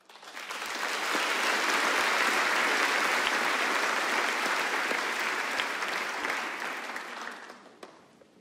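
Concert audience applauding at the end of a song, swelling up over the first second, holding steady, then dying away near the end.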